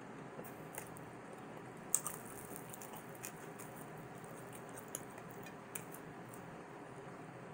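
Soft eating sounds: chewing with faint wet mouth clicks while slices of deep-dish pepperoni pizza are pulled apart by hand, over a steady low hiss. The sharpest click comes about two seconds in.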